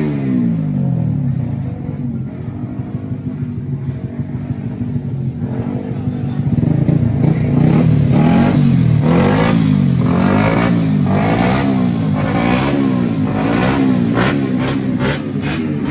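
Race-tuned automatic scooter engine revved over and over, its pitch rising and falling with each throttle blip. It grows louder about six seconds in.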